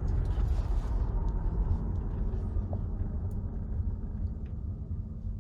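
Tesla Model Y heard from inside the cabin during a hard acceleration run: low road and drive rumble that eases off over the last couple of seconds, with a faint steady hum coming through from about halfway. In this earlier-built car the drive-unit hum is faint and stays outside the cabin.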